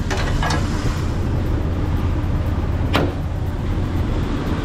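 2002 Jeep Wrangler TJ engine idling steadily in neutral, with one sharp click about three seconds in.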